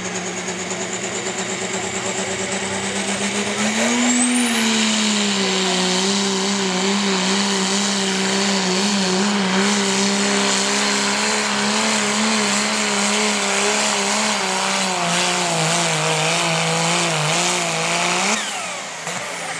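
Dodge Ram diesel pickup pulling a weight sled at full throttle, its engine under heavy load. About four seconds in the engine gets louder and a high turbocharger whistle climbs and then holds, with the engine pitch wavering slightly as it works. Near the end the throttle comes off and the whistle falls away.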